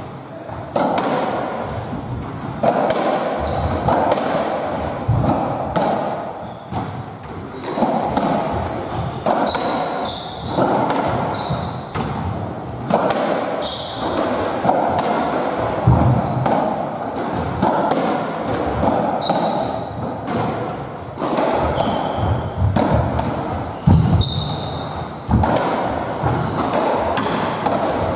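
A squash57 (racketball) rally: the ball repeatedly struck by rackets and hitting the court walls and floor in a long run of sharp knocks, with shoes squeaking on the wooden court floor between shots.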